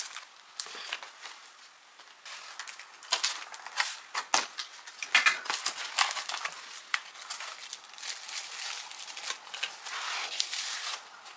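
A cardboard shipping box being opened by hand: flaps pulled open and packaging rustling and crinkling as wrapped glass jars are lifted out, with scattered sharp clicks and taps.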